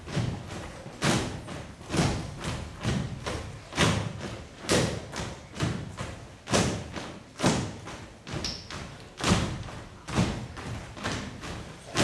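Folk dancers in a Dalmatian kolo stamping in unison on a stage floor: a heavy thud a bit more than once a second, with lighter steps between and no music.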